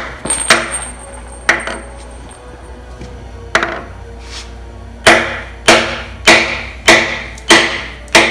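Hammer striking metal with a ringing tone, knocking a brass freeze plug out of a Chevy 305 V8 engine block. There are a few spaced blows, then a steady run of strikes, a little under two a second, through the second half.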